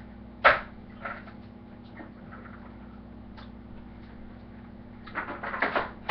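Ice cubes clattering into a water jug: one sharp, loud clatter about half a second in, a smaller one soon after, a few light ticks, then a quick run of clatters near the end, over a steady low hum.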